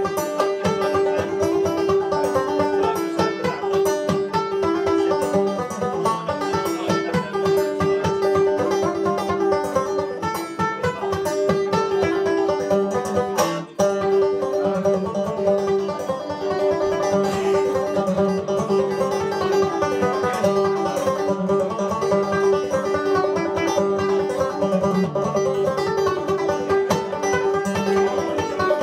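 Solo banjo played clawhammer style, playing a Scottish tune: a fast, even run of plucked notes over a ringing drone note, with a split-second break about halfway through.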